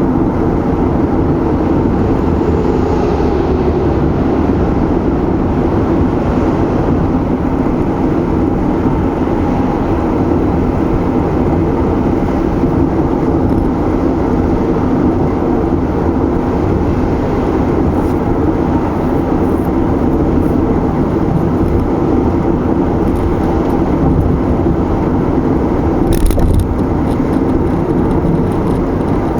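Car driving at a steady speed: even tyre and engine noise, with one brief thump near the end.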